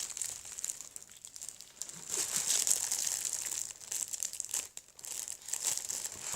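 Plastic wrapping crinkling and rustling as a water bottle sealed in it is handled, in uneven spells.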